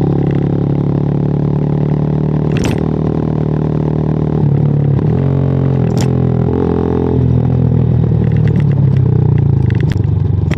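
WMOTO Hawk 200i motorcycle engine running under way at a steady pace. Its pitch dips and climbs again around the middle, and a couple of sharp clicks come through.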